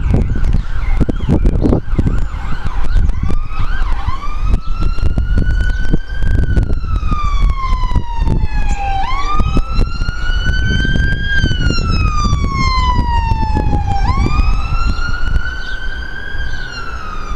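An emergency vehicle's wailing siren, its pitch rising and falling slowly in cycles of a few seconds, starts about four seconds in after a steady high tone. Underneath it runs a heavy low rumble with frequent crackling buffets.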